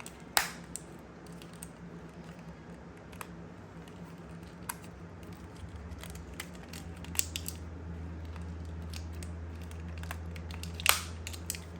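Scattered clicks and taps from handling a small plastic travel alarm clock and its packaging, with one louder click just after the start and another near the end. A low steady hum comes in about halfway through.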